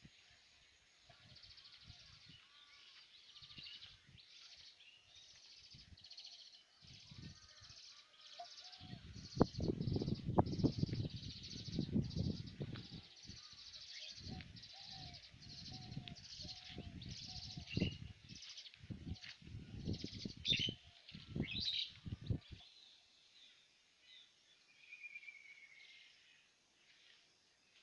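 Birds calling and chirping over a high buzz that pulses about twice a second. In the middle stretch, heavy low rumbles on the microphone come and go and are the loudest sound.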